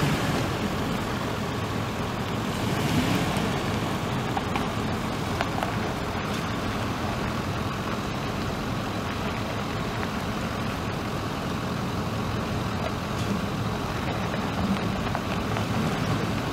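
2006 Ford F150's 5.4-litre gas engine idling steadily.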